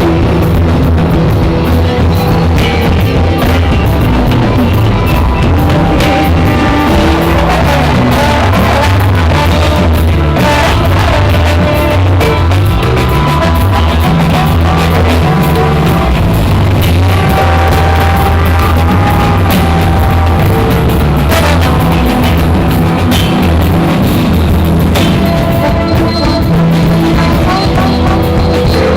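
A live band playing a loud, improvised rock jam, with drum kit and sustained instrument notes over a heavy bass.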